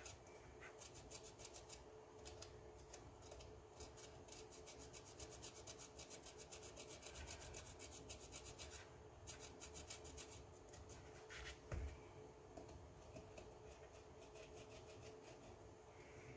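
Felt-tip marker scratching in quick back-and-forth strokes over twine, faint, several strokes a second in long runs with short pauses, sparser later on. One soft knock about two-thirds of the way through.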